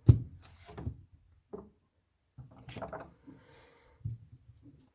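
Handling noise from wiring a GFCI outlet: a sharp knock at the start, then scattered clunks and taps of the outlet and screwdriver against the wall box, with a brief faint scrape about three seconds in.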